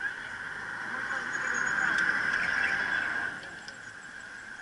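Wind and rolling noise of a bicycle riding within a large pack of cyclists, swelling louder for a couple of seconds in the middle.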